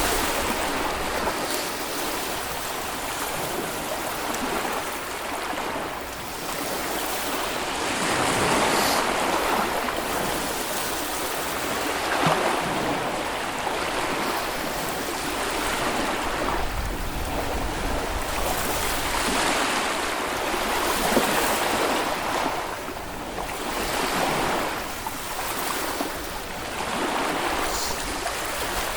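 Small Baltic Sea waves washing onto a sandy beach, a steady surf hiss that swells and eases every few seconds as each wave breaks and runs up.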